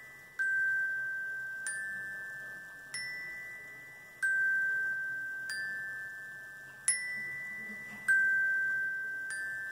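Glockenspiel notes struck one at a time, about one every second and a quarter, each ringing out and fading before the next. Three pitches repeat in the same order, low, middle, high, sounding out a repeating pattern in music.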